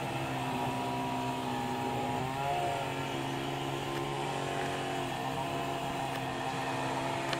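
Steady drone of a small engine running, its pitch shifting briefly about two and a half seconds in and again near five seconds.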